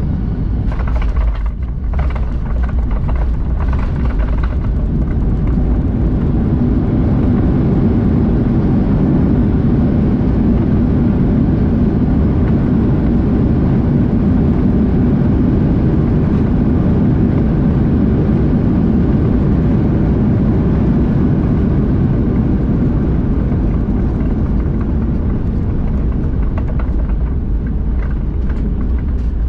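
Boeing 737-800 heard from inside the cabin during landing: a loud, steady low rumble of engines and rushing air that swells about six seconds in and eases slightly near the end, with a few sharp knocks in the first two seconds.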